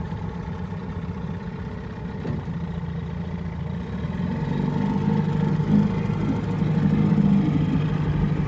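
1997 Johnson 6 HP two-stroke outboard motor running steadily, getting louder from about four seconds in.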